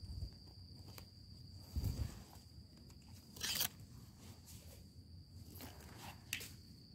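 Quiet handling noises as a small mushroom button is picked from the forest floor: a couple of soft thumps and a short rustle of leaves and soil about three and a half seconds in. A steady high insect trill continues behind.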